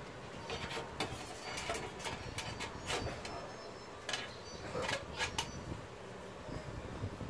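Light clicks, taps and scrapes of thin metal being handled: an LED backlight strip and aluminium heatsink bar set down and pressed into line on a TV's sheet-metal back frame, in small irregular clusters.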